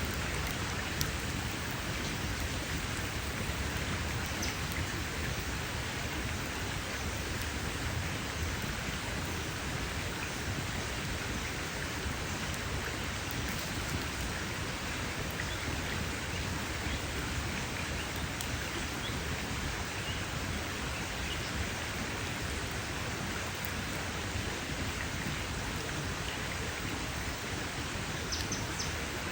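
Campfire burning with a steady hiss and a few sharp crackles and pops scattered through it.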